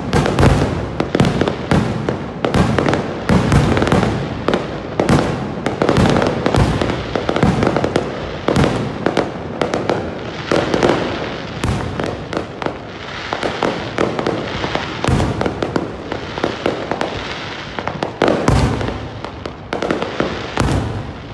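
Aerial fireworks going off in rapid succession: a dense, overlapping run of bangs and crackles, thinning slightly in the second half.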